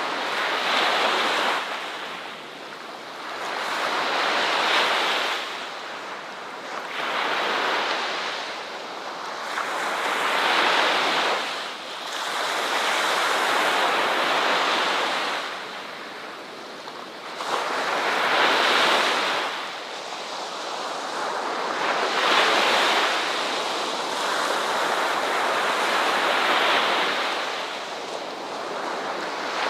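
Ocean surf: waves breaking and washing onto a shore, the rush swelling and fading every few seconds.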